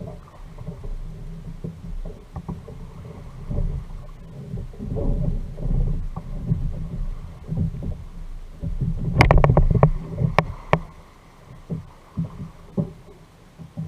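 Water and handling sounds on a fishing kayak at sea: an uneven low rumble with scattered knocks, and a burst of sharp knocks and clicks about nine seconds in.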